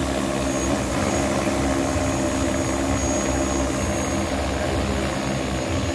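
Large 20-litre agricultural spraying multirotor drone hovering low, its propellers giving a steady, even hum with several layered tones.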